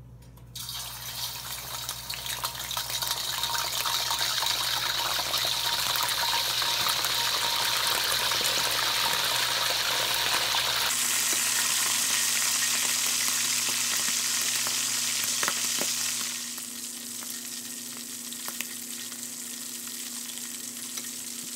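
Adobo-cooked frog legs deep-frying in hot canola oil in a steel wok: a dense, steady sizzle that starts abruptly about half a second in and settles to a quieter sizzle about three-quarters of the way through.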